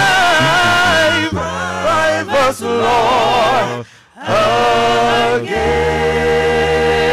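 Gospel praise team singing in harmony into microphones, holding long notes with vibrato. The singing breaks off briefly about four seconds in, then returns over a low, steady chord.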